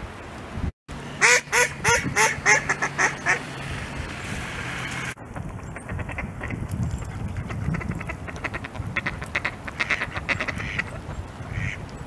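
Mallard ducks quacking. A rapid run of about eight loud quacks comes first. After an abrupt change about five seconds in, quieter, quicker quacking and chatter follows from several ducks.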